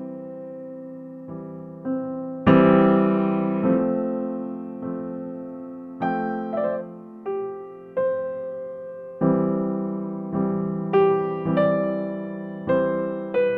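Background piano music: slow chords and notes struck one after another, each ringing and fading before the next.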